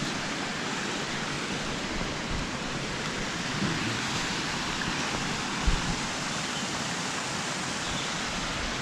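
Steady rushing of the Summerhill Force waterfall, with a brief low thump a little past halfway.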